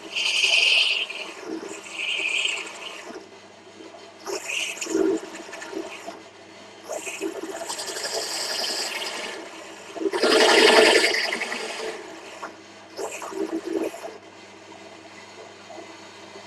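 Pedestal drill press running with a 29 mm boring tool cutting into the cast iron exhaust port outlet of an AM6 moped barrel, its scraping cut coming and going in uneven bursts as the tool is fed down, the loudest about ten seconds in, over the drill motor's steady hum. The oiled, bedded-in tool is cutting nicely.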